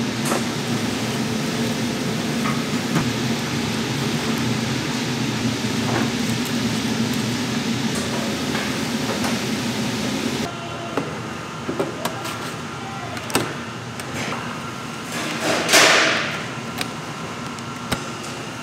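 Food-factory kitchen noise: a steady hiss with a low machine hum that cuts off abruptly about ten seconds in, followed by scattered knocks and clinks of utensils and containers and one loud short whoosh near the end.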